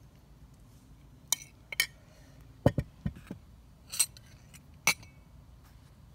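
A metal spoon clinking and tapping against glassware several times, with a couple of duller knocks, as a parfait is layered with spoonfuls of yogurt and granola.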